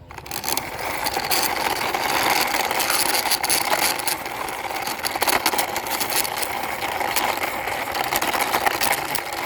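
Toy dump truck pushed along by hand: its plastic wheels and running gear roll with a steady whir and many small clicks.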